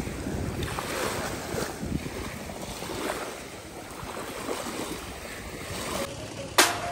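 Wind buffeting the microphone over the steady wash of surf on a beach. Near the end, music with a drum beat cuts in.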